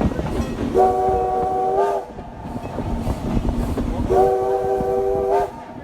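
Steam whistle of 1924 steam locomotive Clover Valley Lumber #4, sounding two blasts of about a second each. Each blast is a chord of several tones that bends up at its end. A steady rumble of the moving train lies underneath.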